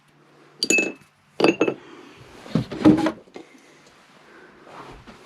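Several sharp knocks and clinks of hard objects being picked up and set down on a workbench, about five in the first three seconds, some with a brief high ring.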